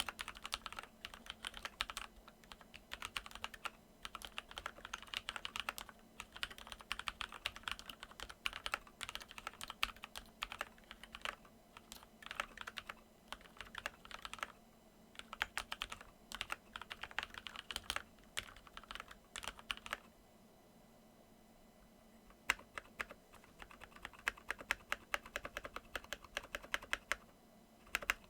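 Keychron K8 mechanical keyboard, fitted with lubed Kailh Silver Speed linear switches, switch films and added case foam, being typed on in quick runs of keystrokes. The typing stops for about two seconds around two-thirds of the way through, then resumes more sparsely. A faint steady static hum from the microphone sits underneath.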